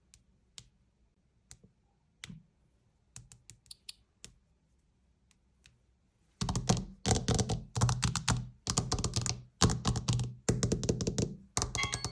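Scattered single clicks and taps, then, about six seconds in, a fast, louder run of tapping that lasts about five seconds.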